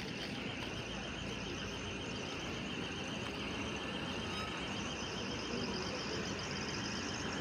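Street noise with cars driving past, and through it a continuous fast, even high-pitched warble from an alarm sounding.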